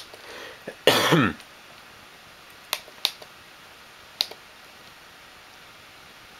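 Keys of a 1975 Texas Instruments TI-2550 calculator clicking as digits are typed, a few separate sharp clicks. About a second in, a person makes a short throat-clearing sound, the loudest thing heard.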